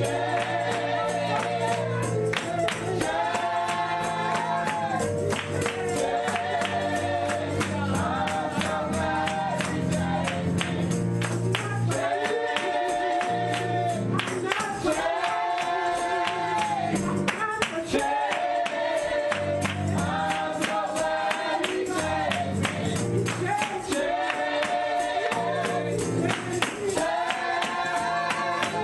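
Congregation singing a gospel song with a steady tambourine beat and instruments behind it.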